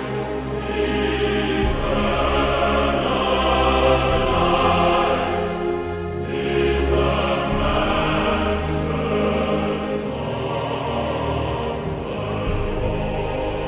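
Choral music: voices singing long held notes over a low sustained accompaniment.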